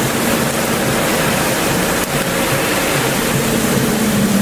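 Steady rushing wind and road noise in a moving vehicle, with a low engine drone underneath.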